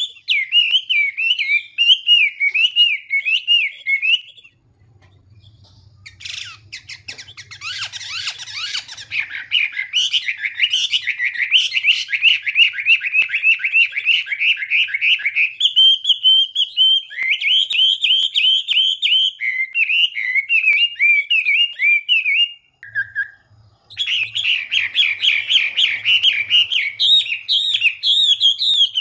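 Chinese hwamei singing a long, varied song of rapid whistled phrases, breaking off briefly twice.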